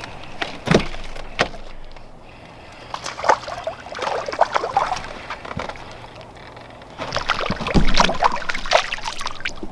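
Knocks and rattles of rod and gear handled in a small fishing boat, then water splashing in two spells. The louder spell near the end is a hooked crappie thrashing at the surface as it is reeled to the boat.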